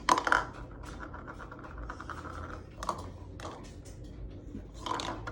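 Irregular light clicking and rattling, a louder clatter at the very start and smaller ones about three and five seconds in, over a low steady background hum.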